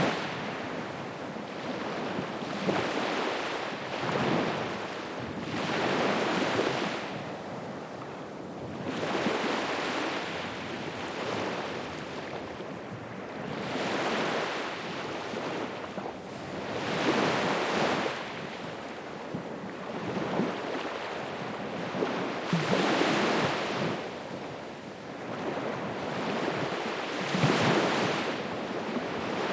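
Ocean surf: waves breaking and washing up the shore, swelling and fading every two to three seconds, with wind on the microphone.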